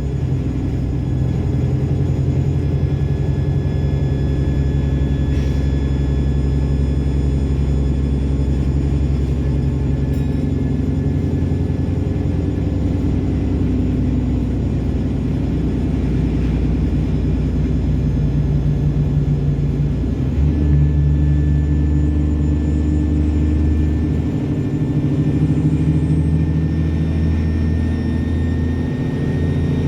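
ADL Enviro400 double-decker bus's diesel engine running under way: a heavy low engine rumble with a steady high turbo whine over it. The engine note changes about two-thirds of the way through and shifts again a few seconds later.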